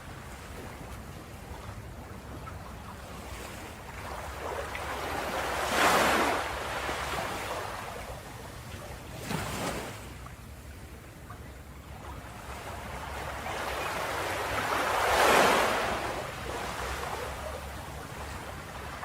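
Ocean waves breaking on a beach over a steady low wash of surf: two big waves surge up and crash about six seconds in and again near fifteen seconds, with a smaller break between them.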